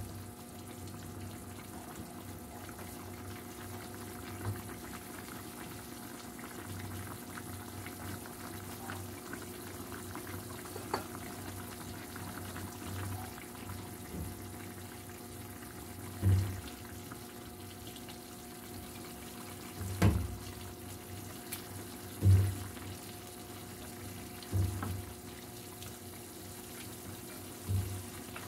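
A plastic ladle stirring and scooping through a pan of hot chicken soup, with liquid sloshing and bubbling, and about five louder bumps of the ladle against the pan in the second half.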